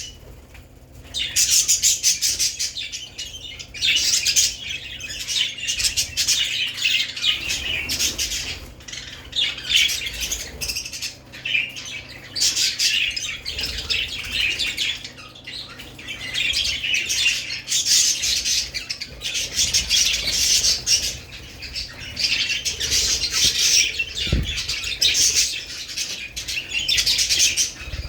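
Budgerigars chattering and chirping in dense waves of rapid, high calls, with short lulls between. A faint steady low hum runs beneath.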